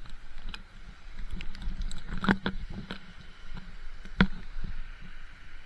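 Scattered knocks and taps, the loudest about two and a half and four seconds in, over a steady rush of rain and flowing water.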